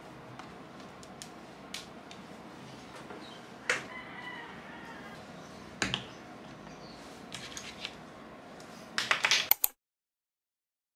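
Laptop, tablet and small accessories being set down and handled on a desk: scattered light knocks and clicks, two sharper knocks about a third and a half of the way in, and a quick run of clicks like typing near the end, after which the sound cuts off abruptly.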